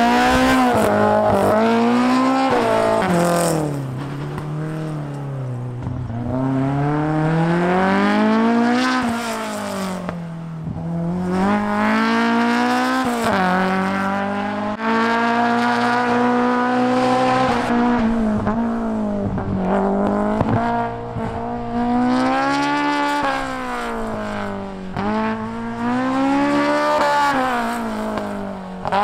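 A race-prepared BMW 02-series car is driven hard on a timed sprint course. Its engine revs rise and fall over and over as the driver accelerates, lifts off and changes gear through the corners, with one longer steady pull about halfway through.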